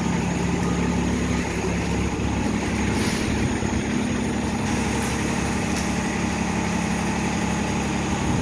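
City transit bus engine idling at the platform: a steady low hum with an even drone.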